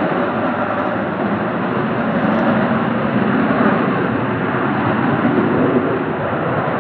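Aircraft engine noise, a loud steady rush that swells a little midway.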